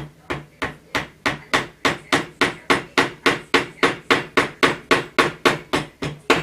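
Hammer tapping in a steady run of about twenty even blows, roughly three a second.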